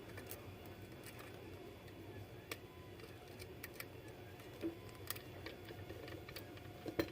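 Faint, irregular metallic clicks of a lock pick working the pins inside a pin-tumbler challenge lock under tension, a click every second or so, over a low steady hum.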